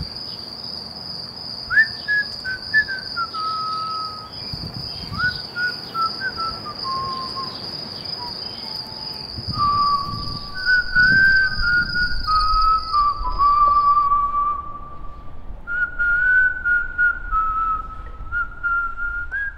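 A person whistling a slow tune in held, stepping notes over a steady chirring of crickets. The crickets stop about two-thirds of the way through while the whistling carries on.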